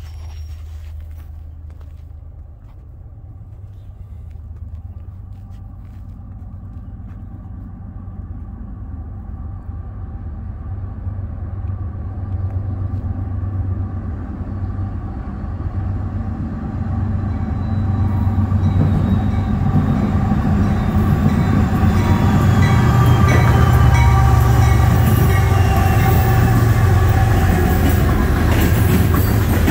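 Norfolk Southern diesel-hauled coal train approaching and passing: a low locomotive rumble and rail hum grow steadily louder as it nears, with a thin whine slowly falling in pitch, until the loaded coal hopper cars roll by at full volume near the end.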